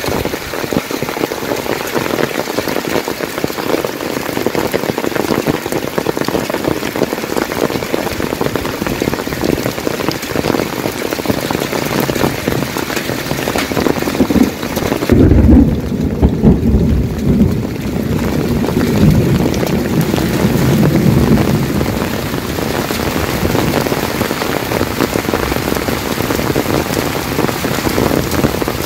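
Heavy rain falling steadily, with a deep rumble of thunder about halfway through that lasts a few seconds and then fades.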